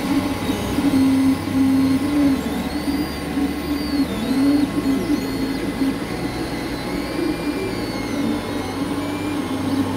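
Creality FDM 3D printer running a print: its stepper motors whine in tones that glide up and down as the print head moves, over a steady whir of cooling fans.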